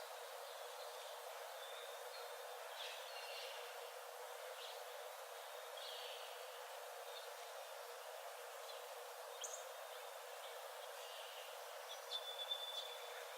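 Forest ambience: a steady hiss with faint, scattered bird chirps and short high whistles, and a thin high whistled note near the end that is the loudest call.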